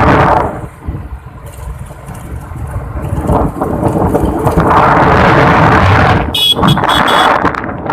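Wind rushing over the microphone and running noise of a moving vehicle, swelling after a few seconds, with a brief high-pitched tone near the end.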